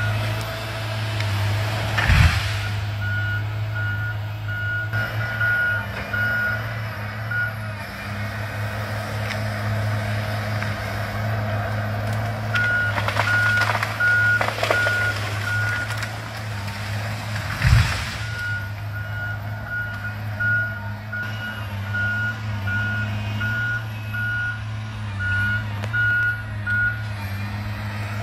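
Tigercat 855E feller buncher's diesel engine running steadily, with its alarm sounding long runs of evenly spaced high beeps. Two heavy thuds stand out, one about two seconds in and one about eighteen seconds in.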